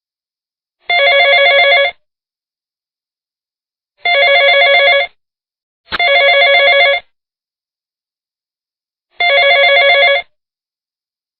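Telephone ringing: four trilling rings of about a second each, separated by silence, with the second and third closer together than the others.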